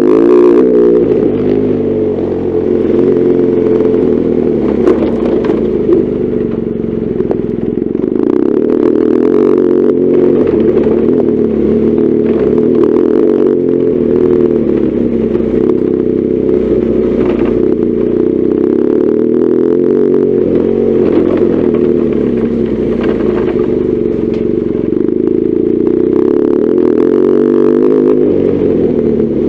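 BMW R1200GS Adventure's boxer-twin engine running while riding, its note rising and falling with the throttle, with some clatter and a couple of sharp knocks about five and six seconds in.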